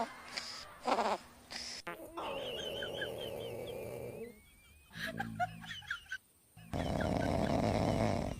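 Sleeping dogs snoring across several short clips that cut abruptly from one to the next. The loudest snore comes near the end, with faint high chirping in the background earlier on.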